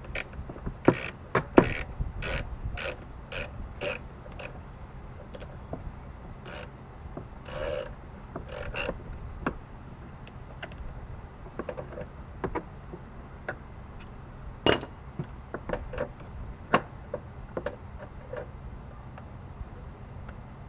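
Ratchet wrench with a 10 mm socket clicking as a nut is worked loose: short clicks about two a second in the first half, then sparser clicks and a few louder knocks.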